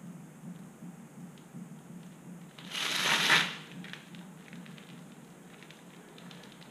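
A brief rustling scrape lasting under a second, about three seconds in, from hands handling parts and tools under the motorcycle. A faint steady low hum and a few light ticks run beneath it.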